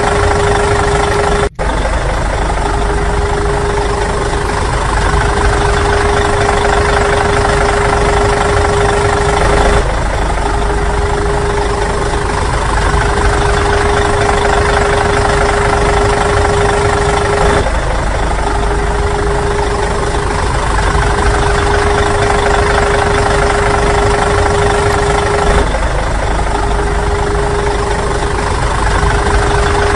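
A steady engine-like running sound with a constant hum, repeating in a loop about every eight seconds, with a brief dropout about a second and a half in.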